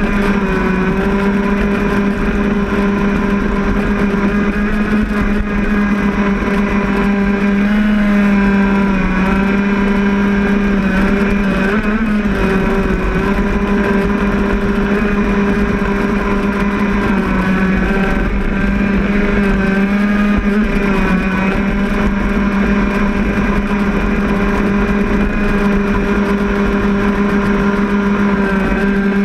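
Stock Zenoah G260 PUM two-stroke gas engine of an RC crackerbox boat running steadily at high revs, heard close up from on board, its pitch holding nearly level with only slight wavers.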